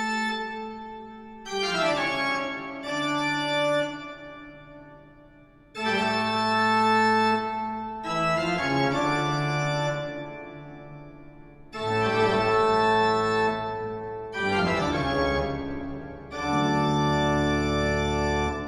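Intro music of sustained organ-like keyboard chords. A new chord comes in every two to three seconds, each starting loud and slowly fading.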